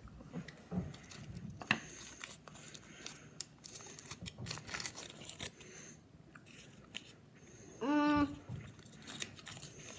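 A child chewing a mouthful of Kinder chocolate, with soft crunches and wet mouth clicks. About eight seconds in there is a short hummed 'mm'.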